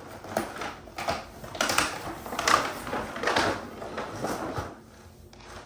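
A toy's packaging being opened: an irregular run of rustling, crinkling and tearing noises that dies down about five seconds in.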